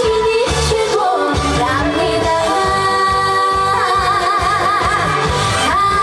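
A trot song played live: a female singer holds notes with a wide vibrato over a backing track with a steady beat.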